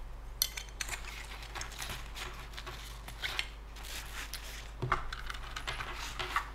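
Hands handling headphones and small hard items inside a padded fabric headphone case: rustling with scattered light clicks and knocks, the sharpest one about five seconds in.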